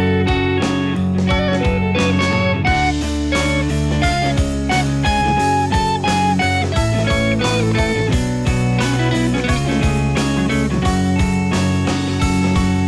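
Background music: a guitar-led instrumental with a steady beat and plucked, bluesy electric guitar lines.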